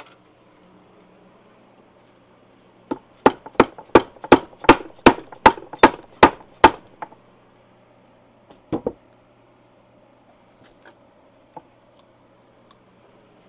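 A hammer striking repeatedly: about a dozen quick, loud blows at roughly three a second, then a single blow about two seconds later.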